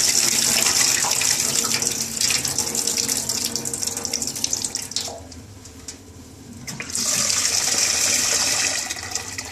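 Cloudy rinse water pours from a saucepan of red lentils into a stainless steel sink. It stops about five seconds in. Near the seven-second mark a tap runs into the pan to refill it: red lentils being washed.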